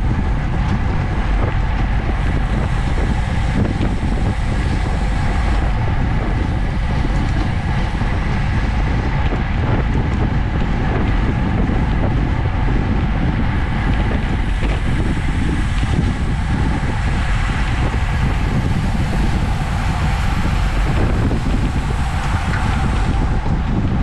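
Wind rushing over a racing bicycle's camera microphone at about 30 to 33 mph: a steady, deep rush that does not let up.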